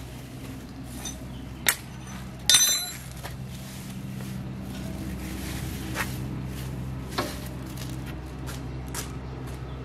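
Dry straw being pulled off a rotary tiller's blade shaft, with a loud metallic clink and brief ring about two and a half seconds in and a few lighter clicks, over a steady low hum.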